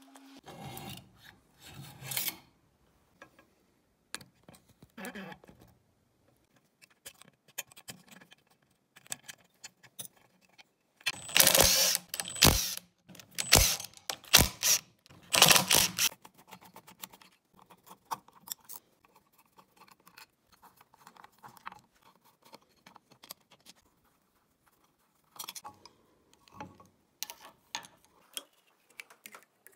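A cordless impact wrench rattling in about four short bursts midway, undoing fasteners on a Piaggio Ciao moped engine; these bursts are the loudest sounds. Around them, scattered clicks and clinks of metal engine parts and tools being handled.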